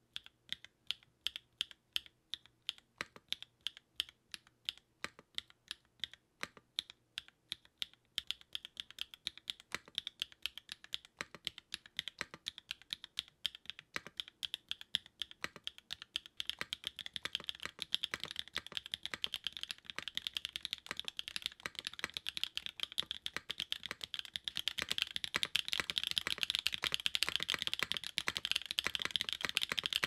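Typing on a custom gasket-mounted Onyx mechanical keyboard with a PC plate, linear MM switches (POM top, nylon bottom, UPE stems, 53.5 g springs) and GMK Dandy keycaps. The typing starts as separate, evenly spaced keystrokes and gets steadily faster, becoming a continuous clatter about halfway through.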